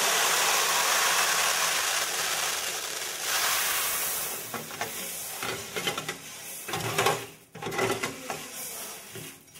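Freshly roasted coffee beans pouring in a steady stream from a roaster-cooler's chute into a plastic bin: a continuous rushing rattle. After about four seconds it breaks up into more scattered clattering of beans.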